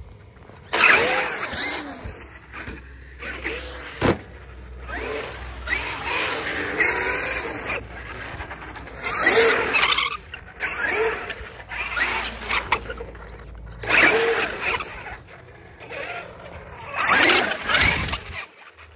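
Traxxas X-Maxx 8S brushless electric RC monster truck driving on concrete, its motor whine rising and falling in repeated bursts of throttle, with tyre noise. There is a sharp knock about four seconds in.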